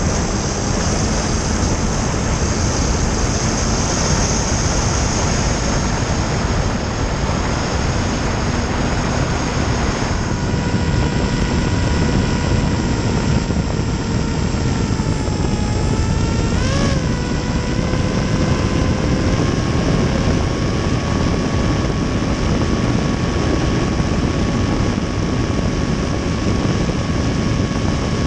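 Hobbyzone Aeroscout S RC plane's electric motor and propeller whining under a heavy rush of wind on the onboard camera's microphone in flight. The whine's pitch sags a little past the middle, wavers briefly, then holds slightly higher as the throttle is changed.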